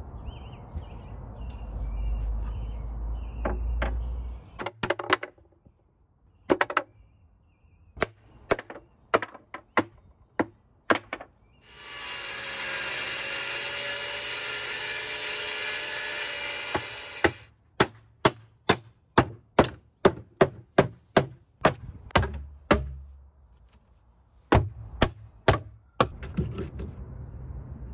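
Repeated sharp hammer strikes on wood and nails in irregular runs, some quick, with a power tool running steadily for about five seconds in the middle. A low rumble fills the first few seconds.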